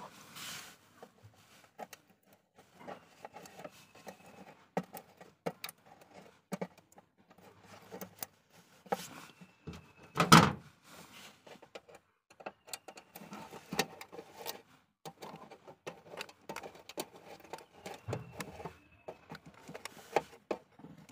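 Screws being tightened into a sheet-metal speaker box: scattered small metallic clicks and scrapes, with one louder knock about ten seconds in.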